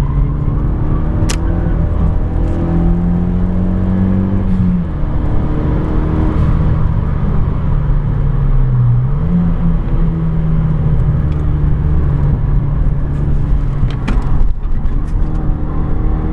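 Renault Megane 225's turbocharged four-cylinder engine with an aftermarket Ktec exhaust, heard from inside the cabin as it is driven hard on track. Its pitch climbs, drops sharply about five seconds in, dips again near the middle, then rises and holds steady. A few sharp ticks sound about a second in and near the end.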